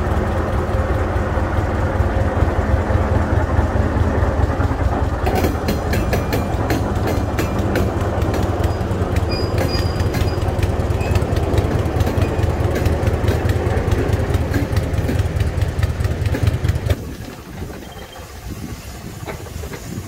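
Ruston diesel shunting locomotive 466629 running under power as it moves a wagon past, a steady low engine drone. From about five seconds in there is rapid clicking of the wheels over the rails. The engine sound drops away sharply near the end.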